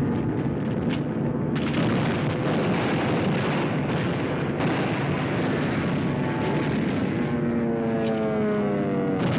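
Continuous din of an air raid: explosions and anti-aircraft gunfire in a dense, heavy rumble, with a descending whistle over the last couple of seconds.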